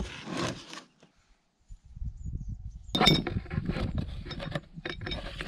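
A cardboard box and its packing wrap rustling as a shower mixer tap is unpacked. About three seconds in the metal tap and fittings knock and clink, followed by a few smaller clicks of handling.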